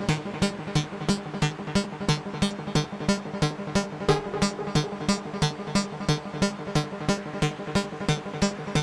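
Electronic music played on an AE Modular modular synthesizer: short noise-like hits repeating about four times a second over sequenced low synth notes.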